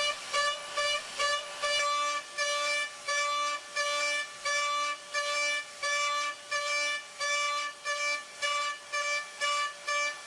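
Background electronic music: a bright, horn-like synth note repeated in short staccato pulses about twice a second, with a lower pulsing note joining about two seconds in.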